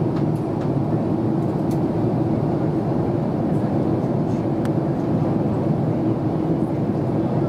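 Steady cabin noise of an Airbus A350-941 in flight: the low, even drone of its Rolls-Royce Trent XWB-84 engines and airflow past the fuselage, heard from a window seat.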